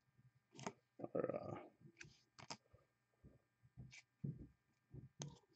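Faint clicks and taps of trading cards and their plastic holders being handled and set down on a table, with a short rustle about a second in.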